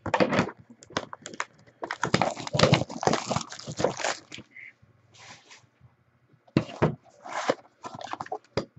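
Plastic shrink wrap crinkling and tearing as a sealed trading-card box is unwrapped and its cardboard opened, in irregular crackling bursts with a short pause in the middle.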